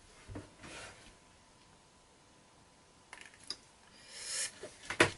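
Small handling noises at a model-building bench: a light knock, a few clicks, a short rustling hiss, and a sharp click near the end, the loudest sound.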